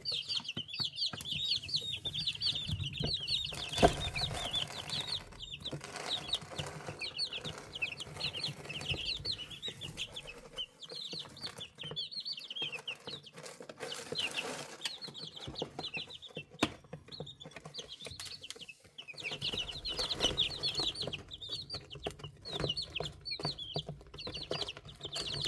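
Young chicks peeping: many short, high cheeps in quick runs, thinning out in the middle and thickening again near the end.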